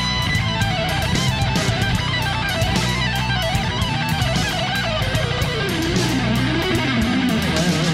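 Background music: an electric-guitar-led rock track with a steady drum beat.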